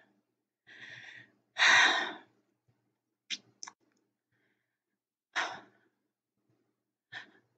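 A woman breathes in and lets out a sigh about two seconds in, followed by a few short mouth clicks and quick breaths.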